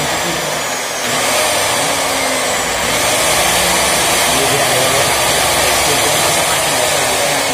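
Makita SSP industrial angle grinder's electric motor running with no load on a test run after its burnt-out switch was replaced: a steady loud motor noise with a high whine. The speed dips briefly about a second in and picks up again.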